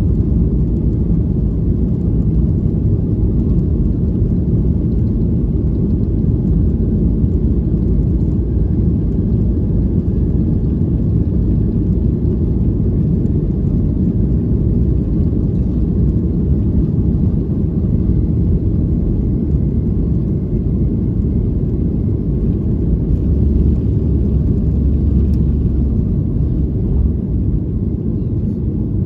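Steady, loud low rumble inside the cabin of a Boeing 737-800, from its CFM56-7B turbofan engines at high thrust and the airflow past the fuselage during takeoff and climb-out.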